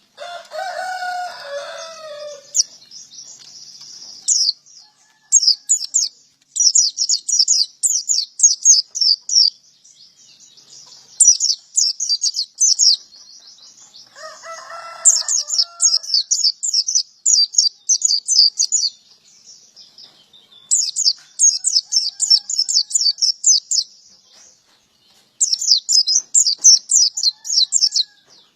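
Male white-eye (pleci, Zosterops) singing in repeated phrases of fast, high-pitched chattering song, each a few seconds long with short gaps between. A lower-pitched call sounds at the start and again about halfway through.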